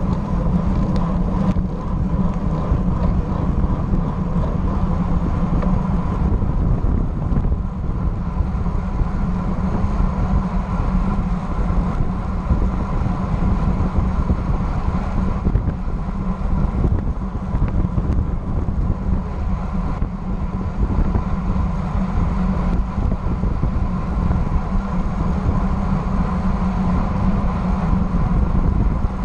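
Wind buffeting a bike-mounted action camera's microphone on a road bike riding at about 25 mph, with tyre and road rush: a steady, loud, low-heavy rumble.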